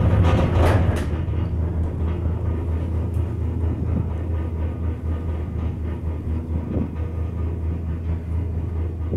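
Von Roll detachable gondola cabin riding the haul rope uphill, heard from inside: a steady low hum and rumble. A louder rattling swell with clicks comes in the first second, then the rumble carries on evenly with a couple of faint swells.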